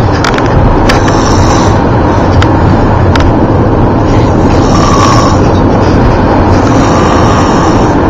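Steady road and engine noise of a moving car, heard from inside the cabin, with a few light clicks.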